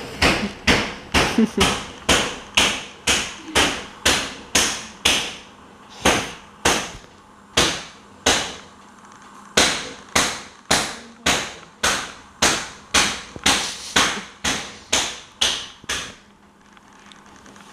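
Steady pounding at a kitchen counter: hard blows, about two a second, each with a short ringing tail. It stops about sixteen seconds in.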